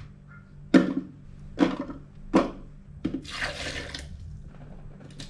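Chopped shallots and spice roots dropped into a plastic blender jar: three sharp knocks under a second apart. Then a little water poured into the jar for about a second, starting about three seconds in.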